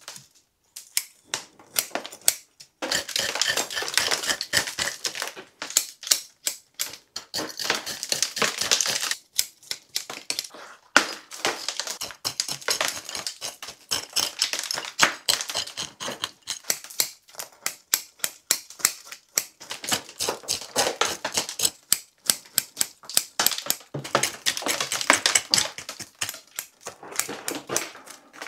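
A root rake scratching and picking through a European hornbeam bonsai's compacted root ball, loosening the old soil. It makes dense, gritty scraping and rapid clicking in stretches of a few seconds, with scattered clicks between.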